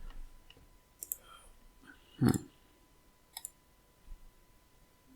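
Computer mouse clicking a few times while files are opened in slicing software, with one louder click and thump about two seconds in.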